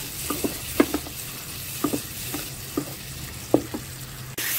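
Chilies, shallots, garlic and tauco sizzling in hot oil while a wooden spatula stirs them, its strokes scraping and knocking the pan at an uneven pace. The sizzle grows louder near the end.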